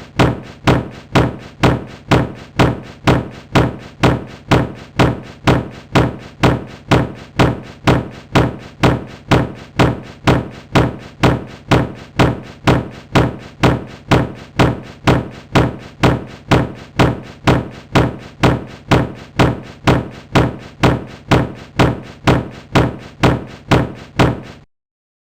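A dull thud repeated at a steady pace, about two a second, each hit heaviest in the low end; it stops suddenly near the end.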